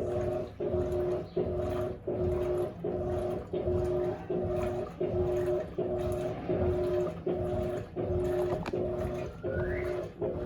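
Electrolux LAC16 washing machine agitating, its 1/4 hp WEG motor from an LT13B humming in short strokes, about one and a half a second, with a brief pause as it reverses between each. A short rising squeak comes near the end.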